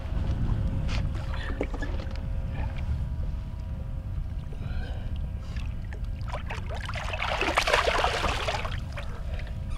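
Water and wind rumbling low against the side of a fishing boat, with a few light knocks early on. Then water splashes and gurgles for a couple of seconds about seven seconds in.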